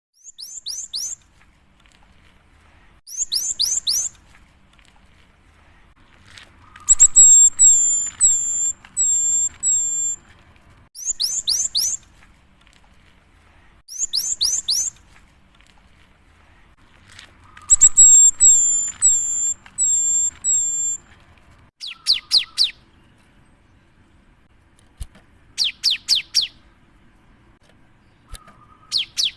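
Cinereous tit (gelatik batu) singing: short bouts of three or four rapid, very high sweeping notes every few seconds, alternating with longer phrases of clear repeated notes.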